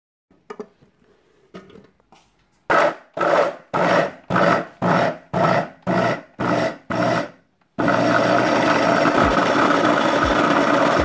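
Electric food chopper grinding chunks of squash: the motor is pulsed in about ten short bursts, roughly two a second, then runs continuously for the last three seconds. A few light clicks come before it starts.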